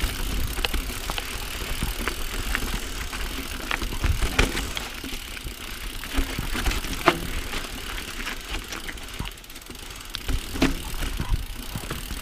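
Mountain bike rolling fast down a rough dirt and rock trail: steady wind rumble on the microphone, and tyre noise, with the bike rattling and clicking sharply over the bumps many times.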